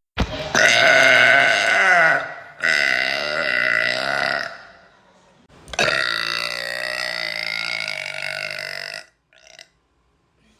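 A girl burping: three long, drawn-out, pitched burps, the last lasting about three seconds.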